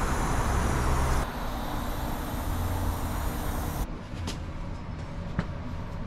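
Steady hiss of nitrogen flowing from a cylinder regulator and hose into a heat pump's refrigerant lines, pressurizing the system to find a suspected leak. The hiss stops suddenly about four seconds in, followed by a couple of faint ticks.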